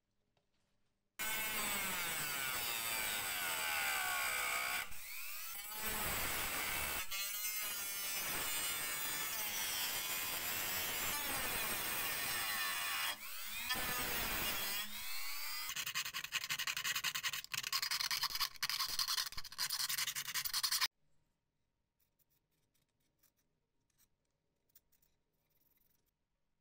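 Handheld rotary tool with a small cutting disc cutting through the rusted sheet metal of a vintage flashlight. The motor whine sags and rises in pitch as the disc bites, with a few brief dips. It starts about a second in and stops abruptly, leaving only faint taps and handling.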